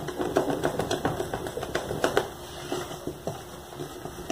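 Wooden spoon stirring a thick whipped-cream base in a plastic tub, knocking and scraping against the tub's sides in a quick, irregular run of light taps.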